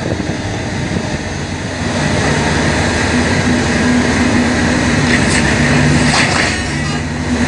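Diesel engine of a material-handling excavator running under hydraulic load as it swings its grapple claw, the engine hum rising in pitch about two seconds in and wavering after that. A few short crackles sound around five to six seconds in.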